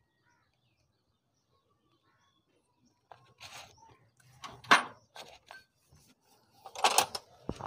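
Near silence for about three seconds, then a few short metallic clicks and knocks from a motorcycle cylinder head and its rocker parts being handled, with one sharper knock among them.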